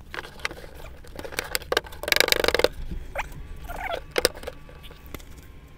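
Card scraping and tapping against the wood of a doll's house as a hand pushes a cardboard fireplace piece into place: scratchy rustling and small clicks, with a louder scrape about two seconds in and a couple of sharp taps near four seconds.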